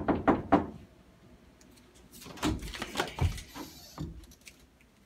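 Quick series of loud knocks on an interior door at the start, then irregular bumps and rustling from about two to four seconds in.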